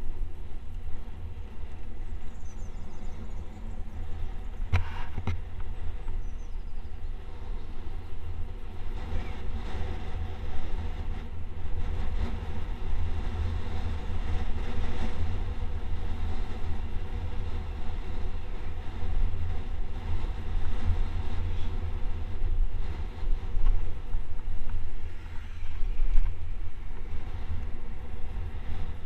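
Wind buffeting the microphone of a camera on a bicycle coasting downhill at speed, a steady, uneven low rumble. A sharp click about five seconds in.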